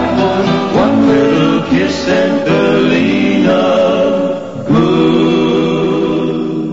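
Closing bars of a country-western ballad: sung lead and harmony voices over guitar, drawing out the final line, then settling on one long held chord about two-thirds of the way in.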